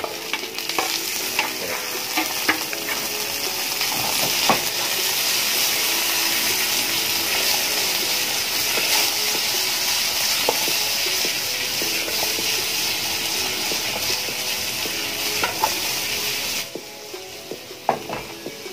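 Tomato wedges, onion and garlic sizzling in hot oil in a frying pan while being sautéed, with a spatula clicking and scraping against the pan as they are stirred. The steady sizzle drops away sharply near the end.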